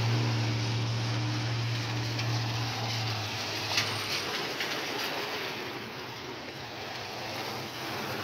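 Vehicles on a rain-soaked street: a steady hiss of tyres on wet pavement, with a low engine hum that fades out after about three seconds. There is one sharp click just before the four-second mark.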